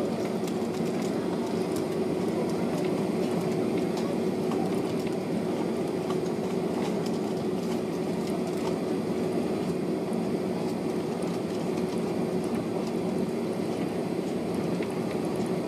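Jet airliner cabin noise while taxiing: the engines run at low taxi power as a steady hum with one constant tone, and the wheels roll over the taxiway with a few faint ticks and rattles.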